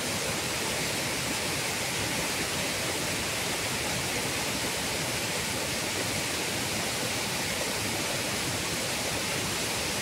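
Waterfall running in strong flow, white water cascading over rock ledges: a steady, even rush of water.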